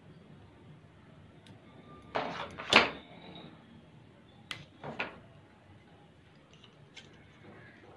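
Red adhesive tape pulled off its roll and wrapped around an aerosol can, with two short pulls of tape a couple of seconds in, the second the loudest. Two sharp clicks of hands handling the can follow about two seconds later, then a faint tick.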